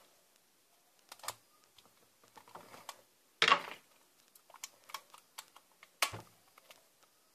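Small plastic toy packaging being handled close to the microphone: scattered light clicks and taps, with two louder brief rustles about three and a half and six seconds in.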